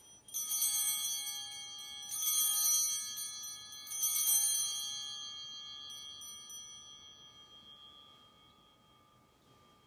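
Altar bells shaken three times at the elevation of the chalice during the consecration, each ring a bright cluster of several tones that hangs on and fades away over the next few seconds.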